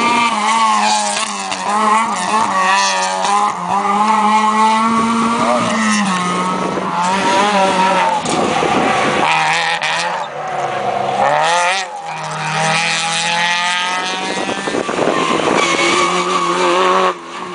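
Rally cars racing past one after another, their engines revving hard, the pitch rising and falling with each gear change. The sound breaks off abruptly near the end.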